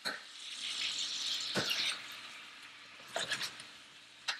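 Shrimp sizzling in oil in a hot stainless skillet as they are stirred around. The sizzle is strongest in the first two seconds and then fades, with a knock at the start, another about a second and a half in, and a few quick clicks against the pan around three seconds in.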